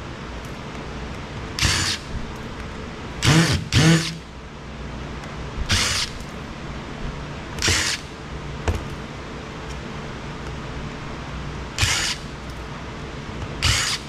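Cordless power driver with a number one Phillips bit backing out small screws, in seven short bursts of under half a second each, over a steady low hum.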